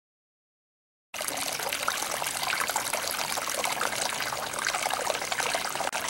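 Water trickling and splashing over rocks at a small waterfall, a steady rush that starts abruptly about a second in.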